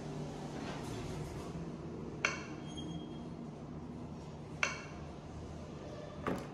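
Three short electronic beeps from an Otis Compass destination-dispatch kiosk as its touchscreen and accessibility button are pressed, over a steady low hum.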